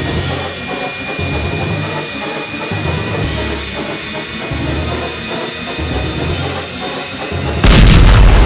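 Background music with a pulsing bass line. About three-quarters of the way through, a loud explosion sound effect cuts in suddenly and stays loud.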